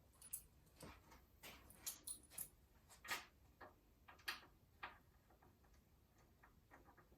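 Faint, irregular light clicks and taps, about a dozen scattered over several seconds.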